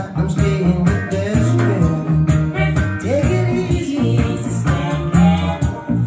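A song with singing, a sustained bass line and a steady beat, played back over a pair of KEF Egg desktop speakers.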